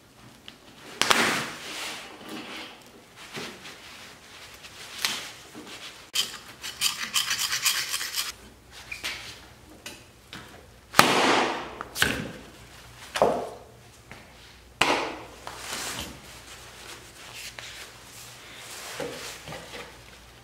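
Umbrella's foam grip being torn and pried off the metal shaft against a wooden board: a series of sudden scrapes, rubs and knocks, with a fast rasping run of about two seconds around six seconds in.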